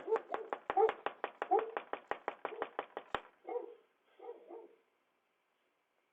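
Fast, frantic pounding on a door, about six or seven blows a second, stopping about three seconds in. A dog barks along with it, and a few more barks follow.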